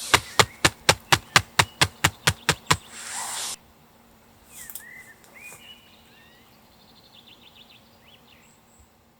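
A rapid, even series of sharp clicks, about four or five a second, ending abruptly after about three and a half seconds. Then faint bird chirps in the forest.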